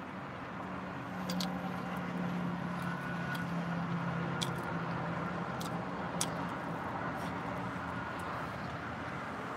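A steady low mechanical hum, like a running engine, that swells slightly about a second in, under a person chewing roasted chicken legs with a few sharp clicks.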